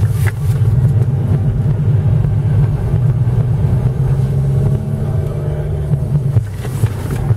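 Toyota bB's engine and drivetrain heard from inside the cabin while the car manoeuvres: a steady low rumble whose tone rises gradually through the middle, then eases off about six seconds in.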